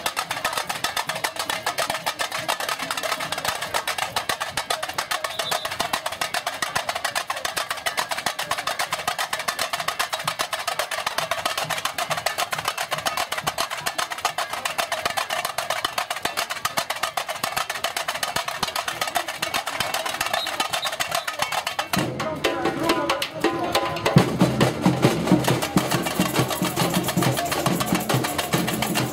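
Samba-style street percussion band (bateria) playing a fast, driving rhythm on snare drums and hand percussion. Deeper drums come in about three-quarters of the way through, and the playing gets a little louder.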